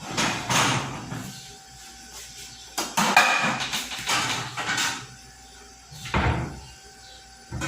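Metal pots and pans knocking and scraping as they are handled and set down, in three spells of clatter with quiet gaps between.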